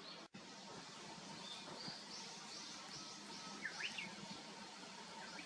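Wild birds calling over a steady outdoor hiss: a run of about six short, high repeated notes, then two quick sweeping calls, the loudest sounds, about two-thirds of the way through.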